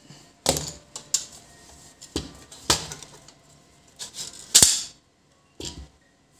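Sheet-steel cover of a computer power supply being worked loose and pulled off by hand: a string of sharp metallic clicks and clanks, the loudest about four and a half seconds in.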